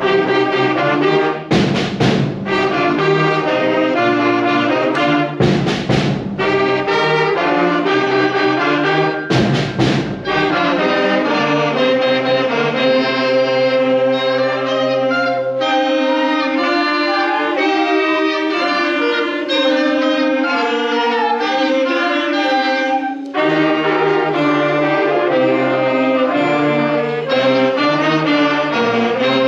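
A student beginning concert band playing: brass, saxophones and clarinets holding chords, with three loud percussion crashes in the first ten seconds. The low instruments drop out for about eight seconds midway, then come back in.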